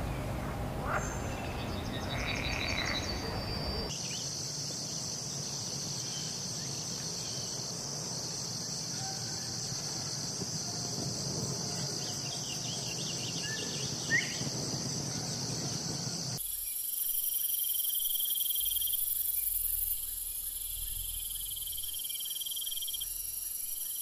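Nature ambience of a steady, high-pitched insect chorus. Its pitch and texture change abruptly about four seconds in and again a little past the middle. A single short click comes about fourteen seconds in.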